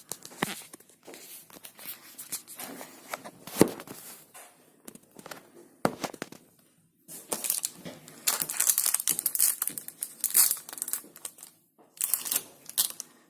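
Crinkling and tearing of a dishwasher tablet's plastic wrapper as it is opened by hand: irregular crackles and rustles, busiest in the second half.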